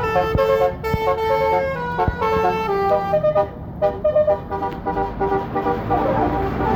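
A bus's basuri multi-tone 'telolet' horn playing a melody: a run of held horn notes stepping up and down in pitch, with a short lull about three and a half seconds in.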